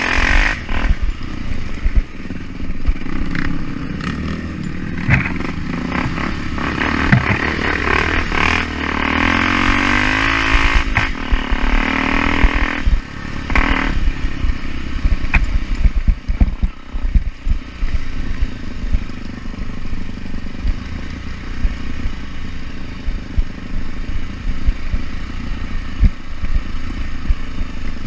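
Off-road motorcycle engine running under load, revving up in a rising climb about nine to twelve seconds in, then easing off. Rattles and knocks come through steadily throughout.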